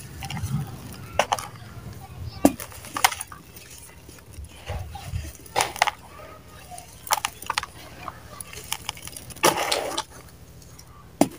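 Dry mud balls crushed and crumbled by hand in a plastic tub of loose mud powder: a run of sharp, separate crunches with powdery rustling between them, and a longer, denser crumbling crunch near the end.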